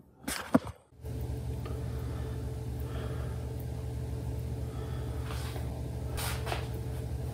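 A few soft knocks and one sharp click, then from about a second in a steady low hum with a faint higher tone running under it, broken by a couple of brief soft rustles.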